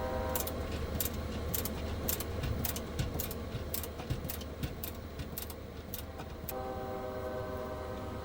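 A run of irregular sharp clicks, about two or three a second, over a steady low rumble; a steady multi-tone hum drops out while the clicks go on and comes back near the end.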